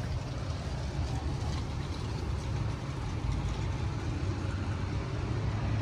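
Steady low outdoor rumble of background noise, with no distinct events standing out.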